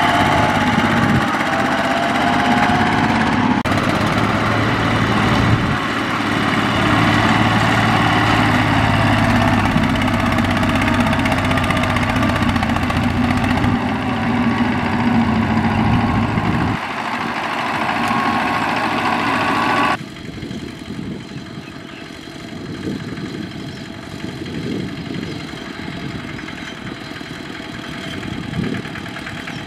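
Single-cylinder diesel engines of two-wheel walking tractors running steadily as they haul loaded rice trailers. About two-thirds of the way through, the sound drops suddenly to a quieter, lower engine running.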